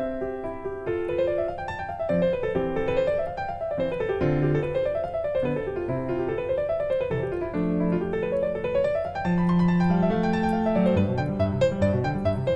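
Background piano music: quick runs of notes that climb and fall again and again over held bass notes.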